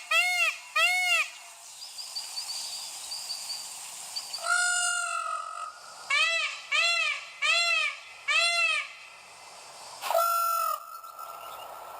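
Peacock calling: series of loud, rising-and-falling calls about two a second, a couple at the start and a run of five in the middle, with a flatter held call about four seconds in and another near the end. Faint high chirping from a small bird runs underneath.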